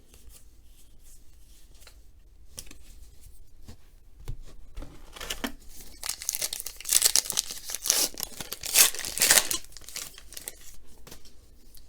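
A trading card pack wrapper being torn open and crinkled by hand, with faint handling rustles first and loud crackling tearing through the middle and later part.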